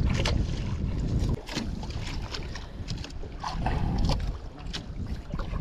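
Wind buffeting the microphone over water noise aboard a small outrigger fishing boat, a fluctuating low rumble. A few light clicks and knocks come from handling the catch and gear on the wooden deck.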